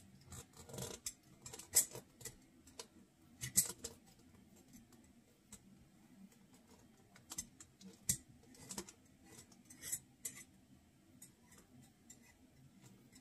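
Gloved hands screwing a lid down onto a glass mason jar: irregular light clicks, taps and scrapes of the lid on the glass, with the sharpest ones about two and three and a half seconds in.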